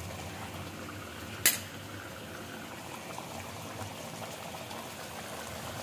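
Chicken white roast bubbling as it simmers in a yogurt and ghee sauce, its last water cooking off. About a second and a half in there is one sharp click.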